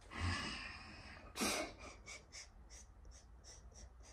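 A person breathing out heavily in a sigh, then a sharp, short breath through the nose about a second and a half in, followed by a run of faint quick clicks.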